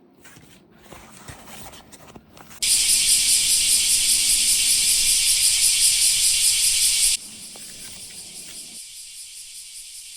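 A loud, even high-pitched hiss with a fine rattling flutter, starting suddenly about two and a half seconds in and cutting off abruptly about seven seconds in, after which a quieter hiss continues.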